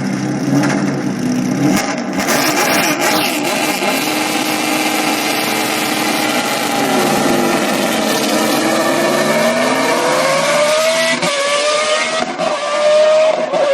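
Naturally aspirated Judd V8 of the BMW 134 hillclimb car running hard and revving. Its pitch climbs steadily through the second half, dropping sharply at upshifts near the end and climbing again.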